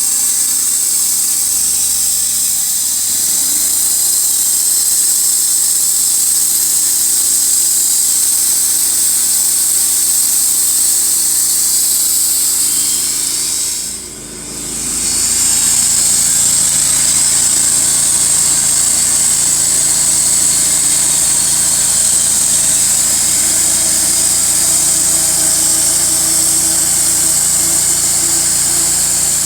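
Wood-Mizer LT15 portable band sawmill running: a steady engine sound with a strong hiss, dropping briefly about halfway through.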